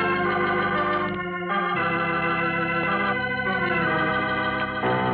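Organ music playing sustained chords that change several times, with a short drop in level just over a second in: a radio drama's theme music.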